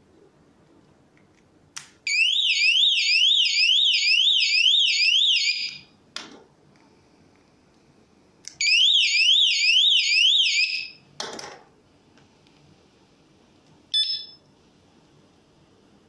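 Anti-theft alarm of a mobile-phone security display system going off twice, each burst a few seconds of loud electronic whooping, two or three rising sweeps a second, starting and stopping with a click. Near the end there is one short electronic beep.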